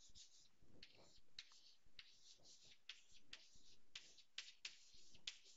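Chalk writing on a chalkboard: a run of short, faint, scratchy strokes, about three a second, as letters are written.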